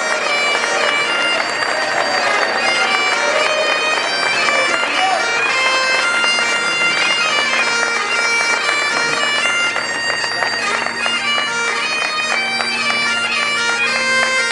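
Bagpipes playing a processional tune: a melody moving over steady, unbroken drones.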